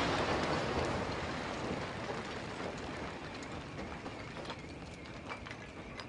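Church bell tower collapsing after a demolition blast: a rumbling crash of falling masonry that fades steadily over several seconds, with scattered knocks of debris near the end.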